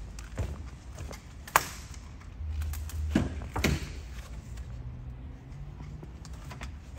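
Footsteps and handling noise: scattered clicks and thumps over a low steady hum, with a sharp click about a second and a half in and two heavier thumps around the middle.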